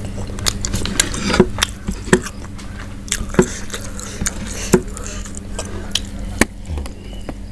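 Close-up eating sounds: a person chewing and biting fried free-range chicken, with irregular sharp crunches and mouth clicks every second or so over a steady low hum.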